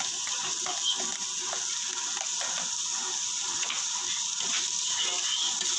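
Chopped pork and onions sizzling steadily in a frying pan, with a metal spoon clicking and scraping against the pan as chopped red onion is tipped in and stirred.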